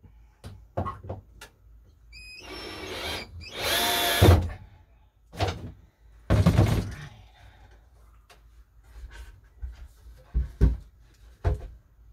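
Power drill driving screws to fasten a shelf bracket to the shed wall, running in several short bursts with its motor whine rising and falling. A few knocks follow near the end.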